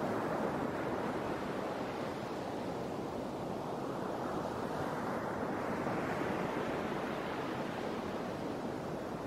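Steady outdoor rush of wind and sea, swelling slightly around the middle.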